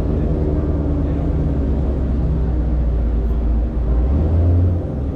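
C7 Corvette's V8 engine running steadily under way: a low, even drone that swells briefly about four seconds in.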